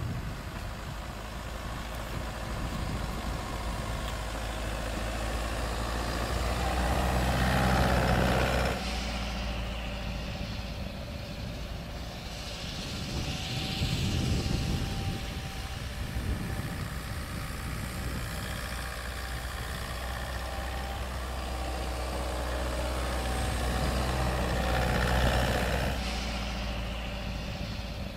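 Toyota Land Cruiser Prado 150's engine running while the vehicle is driven off-road, its note swelling louder about a quarter of the way in and again near the end.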